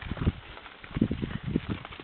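Hooves of a herd of cattle being driven past, giving many irregular, overlapping hoofbeats.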